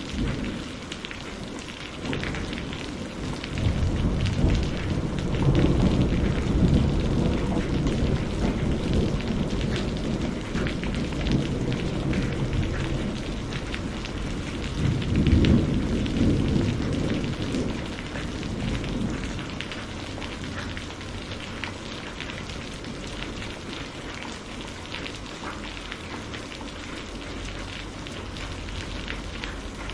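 Thunderstorm: steady rain with long rolls of thunder. A deep rumble builds a few seconds in and rolls on for about ten seconds, a second, louder peal swells a few seconds later, and then the rain carries on alone.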